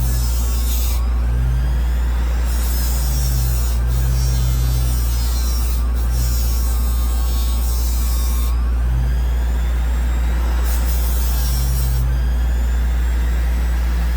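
Bench grinder motor running steadily with a fiber wheel, as a knife blade is pressed to the wheel in repeated passes. Each pass adds a grinding hiss that comes and goes every second or two over the motor's steady hum.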